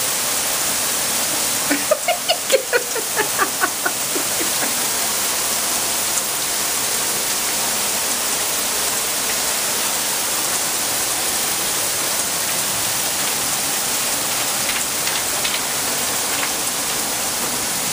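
Heavy rain pouring steadily on pavement and lawn. About two seconds in, a short rhythmic burst of a person's voice rises over it, with a few fainter vocal sounds near the end.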